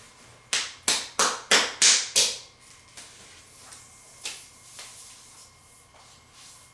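Six quick sharp slaps, about three a second, followed by a few fainter single taps spaced out over the next few seconds.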